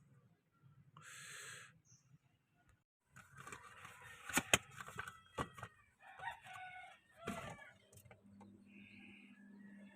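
Metal tools clanking and knocking during an oil change, a few sharp strikes in the middle being the loudest, with a rooster crowing in the background. A low steady hum starts near the end.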